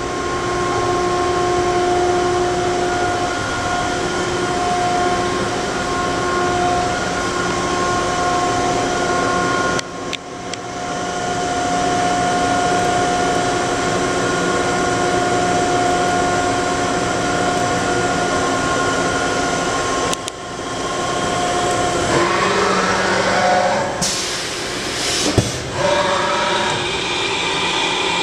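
Milltronics RH19 CNC vertical machining center running, its spindle and drives giving a steady whine made of several pitched tones, with two brief dips about 10 and 20 seconds in. Near the end the whine sweeps down and back up in pitch as the spindle changes speed, then settles on a new steady pitch.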